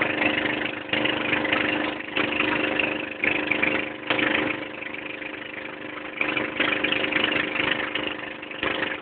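Outrigger boat's engine running steadily under way, with rushing noise that swells and fades every second or so.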